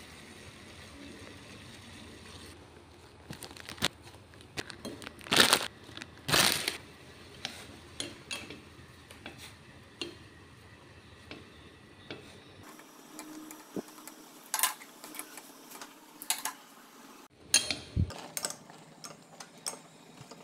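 Kitchen utensils and dishes knocking and clinking at an irregular pace during food preparation, with a few louder knocks about five to seven seconds in.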